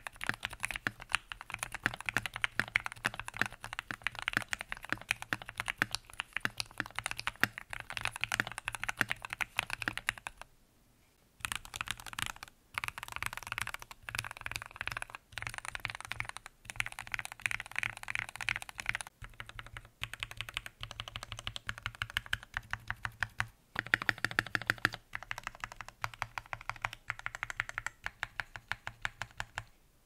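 Typing on a Keychron Q1 aluminium mechanical keyboard with factory-lubed Gateron Pro Red linear switches, Cherry Notion PBT dye-sub keycaps and a tape mod: quick runs of key strokes. The typing stops for about a second a third of the way in, with a few shorter breaks later.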